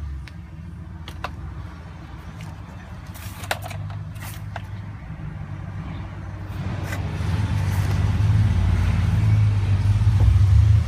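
GM 6.0-litre V8 engine running rough with a misfire (code P0300), caused by a stuck valve lifter. A few sharp clicks sound in the middle, and the engine gets louder about seven seconds in.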